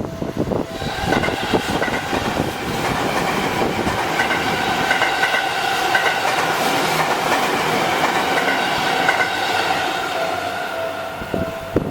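Seibu 20000 series electric train passing through the level crossing: wheel noise builds about a second in and holds steady, with a steady high whine on top, then eases off near the end. The crossing alarm's repeated ringing is heard at the start and again as the train clears.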